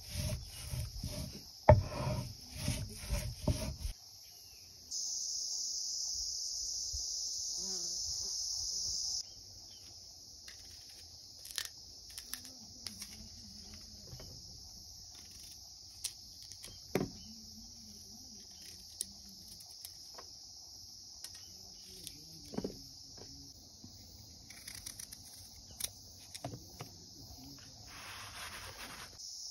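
For the first four seconds, a stone roller scrapes back and forth in rhythmic strokes over a stone grinding slab, grinding greens. Then it cuts off, and crickets chirp steadily, louder for a few seconds. Over them come sparse sharp clicks and taps of a knife cutting apples and pieces dropping onto a metal plate.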